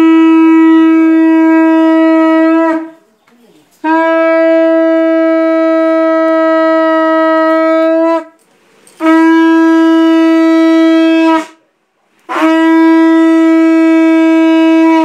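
Conch shell (shankha) blown in four long blasts, each a single steady, loud note held for about two to four seconds and dipping slightly in pitch as it ends, with short breaths between. It is a ritual conch call during a Hindu puja.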